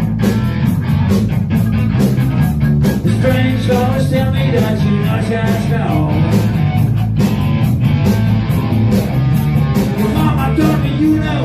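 Live rhythm-and-blues rock band playing loudly: drum kit and electric guitars driving a steady beat.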